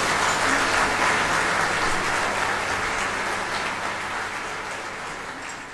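Concert audience applauding after the band's final chord, a dense even clapping that slowly fades away.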